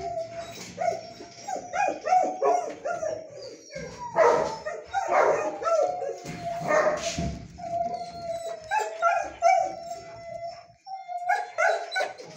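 A dog whining and yipping in a series of high-pitched cries, with one long held whine around eight to ten seconds in and louder yelps or barks about four and seven seconds in.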